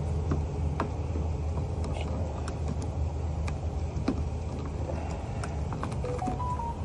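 Steady low motor hum with scattered light clicks, and a few short beeps stepping up in pitch near the end.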